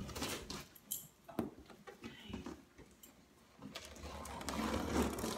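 Scissors cutting through the packing tape on a cardboard box: a few sharp snips in the first second or so, then a longer stretch of slicing and cardboard scraping near the end.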